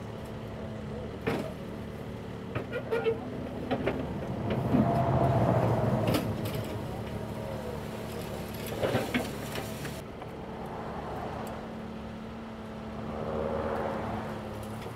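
Kubota mini excavator working in burnt scrap metal. Its diesel engine runs steadily and works harder for a couple of seconds about five seconds in, over scattered metal clanks and scrapes as the bucket grabs and shifts charred axle and wheel parts.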